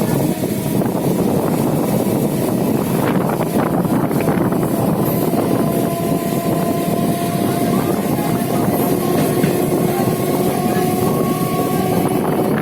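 A train running at full speed on the track: a loud, steady rumble and rattle of wheels on rails, with a faint thin whine held above it.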